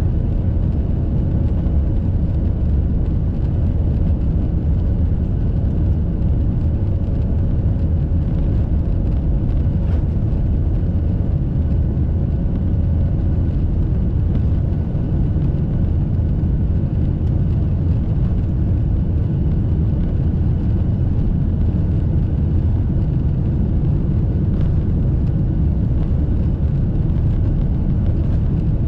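Boeing 737-800's CFM56-7B turbofan engines at takeoff thrust, heard inside the passenger cabin as a loud, steady, deep rumble.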